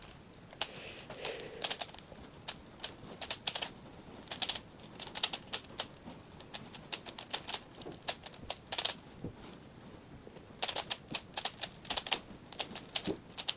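Plastic 5x5 Rubik's cube being turned by hand: quick clusters of sharp clicks as its layers snap round, with short pauses between runs of turns.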